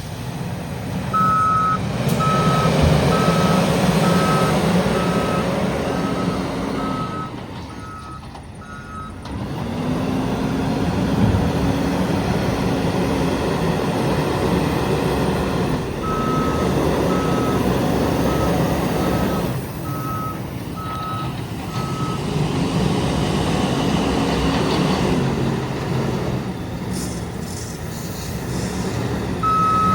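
Diesel engine of a JCB 437 wheel loader working, with a reversing alarm beeping in spells of steady beeps as the machine backs up. The engine eases briefly about eight seconds in, then picks up again.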